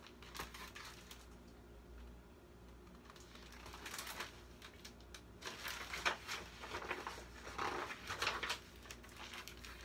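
Pages of a large picture book being turned and handled: a run of soft paper rustles and flaps that begins a few seconds in.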